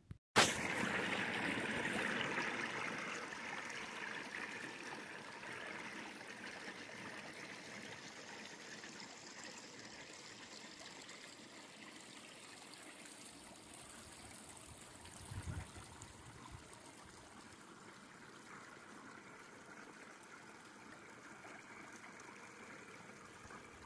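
Small creek running under and around shelf ice, an even rush of water that slowly fades away. A soft low thump about fifteen seconds in.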